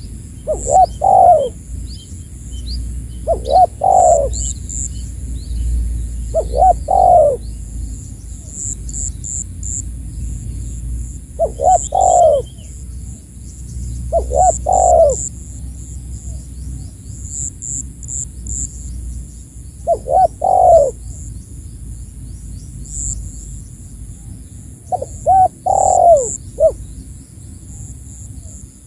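Spotted dove (tekukur) cooing in short phrases of two or three coos, repeated about seven times with gaps of a few seconds: the territorial challenge call used to lure a rival dove in. Faint, high-pitched chirps of small birds sound alongside.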